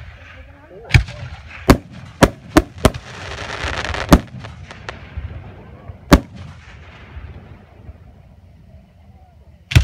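Aerial firework shells bursting in a string of sharp booms, about eight in all. Several come close together in the first three seconds, the loudest is about four seconds in after a swelling hiss, and one more comes near the end.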